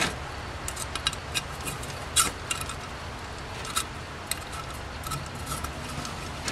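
Small metal carburetor parts clicking and tapping as the accelerator pump and its retaining stem are fitted by hand into a Rochester Monojet one-barrel carburetor body: scattered light clicks, one a little louder about two seconds in.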